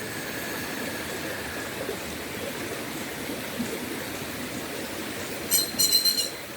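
River water running steadily, with a bird breaking in near the end with a short, loud burst of rapid high-pitched notes.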